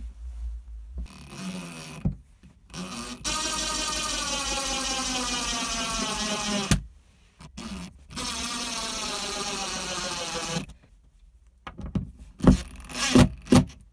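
DeWalt cordless impact driver running twice, for about three seconds each time, driving screws through a small brass mounting bracket into the wall. Its pitch drops slightly during each run. A few sharp knocks follow near the end.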